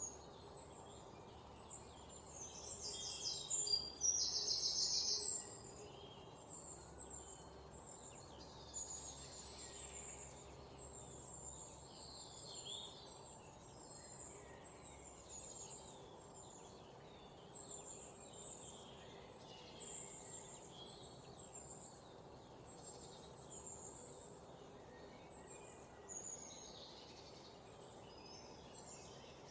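Songbirds chirping with short, high calls throughout, and a louder, fast trill of rapidly repeated notes about three seconds in, over a faint steady background hiss.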